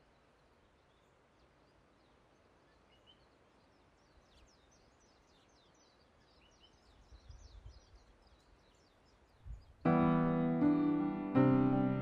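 Faint outdoor ambience with scattered bird chirps, then about ten seconds in a Yamaha piano starts playing loud, sustained chords: the opening of a hymn accompaniment.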